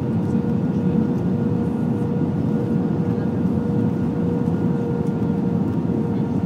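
Steady cabin noise inside an Airbus A321-200 on approach with flaps extended: a dense, even rumble of airflow and engines with a faint steady hum tone running through it.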